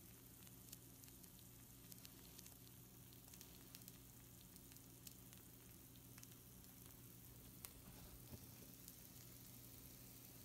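Faint sizzling of pizza rolls on a hot baking sheet, a soft hiss with scattered tiny pops, over a low steady hum.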